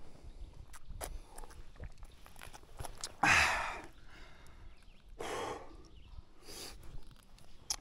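A tired rider's heavy, noisy breaths: three puffs of exhaled air, the first and loudest about three seconds in, with scattered small clicks and footsteps around them.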